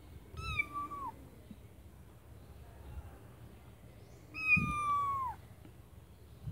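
Kittens mewing: two high, thin mews, the first about half a second long and the second about a second long and louder, each dropping in pitch at the end.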